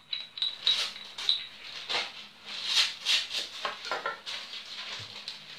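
A spoon stirring and clinking in a small bowl, then baking paper rustling and crinkling as it is handled, in a run of quick clicks and crackles.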